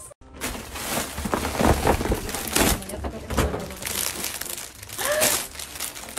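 Clear plastic gift wrapping crinkling and rustling as it is handled and opened.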